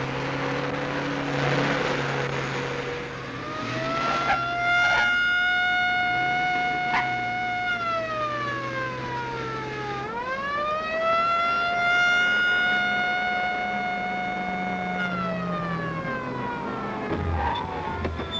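Mechanical emergency-vehicle siren winding up to a steady wail, sliding down, then winding straight back up and falling away again near the end, over the low hum of a car engine.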